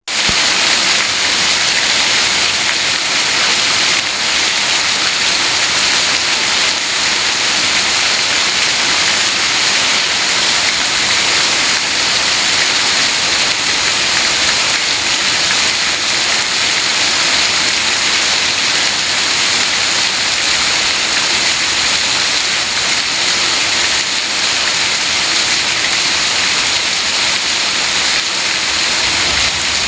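Heavy rain falling steadily, an even, dense hiss with no letup.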